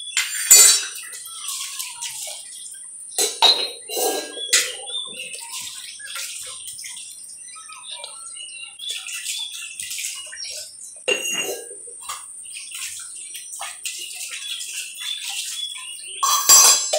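Metal pots and plates being washed by hand with water: splashing and sloshing, broken by irregular clanks and scrapes of the vessels, the loudest about half a second in and near the end.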